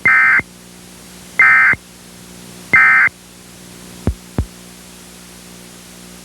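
Three short bursts of digital SAME data tones, the Emergency Alert System's end-of-message signal, sent from a Sage ENDEC encoder. Each burst lasts about a third of a second, and they come a little over a second apart. About a second after the last one come two sharp clicks, over a low steady hum.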